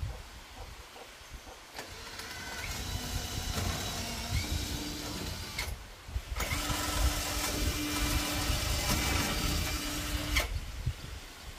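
A small electric power tool's motor running in two runs of about four seconds each, starting and stopping abruptly, with a brief pause between them.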